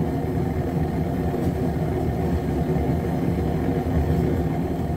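Propane forge burner running, a steady low rush of flame firing into a small soft-brick forge.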